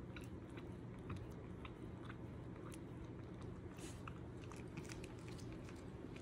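Shiba Inu chewing dry kibble eaten from a hand: a quick, irregular run of small crunches over a faint, steady low hum.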